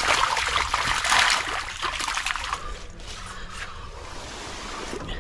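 Water splashing and sloshing as a wire-mesh fish trap is handled in shallow water; the splashing stops a little past halfway and the sound drops to something fainter.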